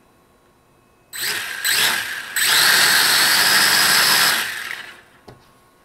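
The four brushed motors and propellers of a Mould King 33041 toy quadcopter spin up in steps about a second in, run steadily at high throttle for about two seconds, then wind down. This is a test run with a freshly replaced motor, which works.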